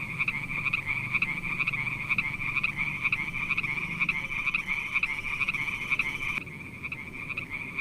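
Frog croaking in a fast, steady run of pulses, several a second. A second, higher call joins about four and a half seconds in and cuts off suddenly about a second and a half later.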